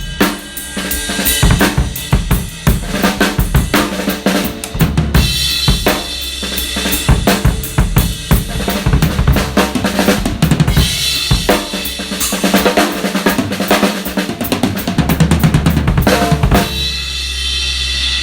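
Premier Artist Maple drum kit played: a busy pattern of bass drum, snare, hi-hat and cymbal hits. The hits stop about a second and a half before the end, leaving a held ring.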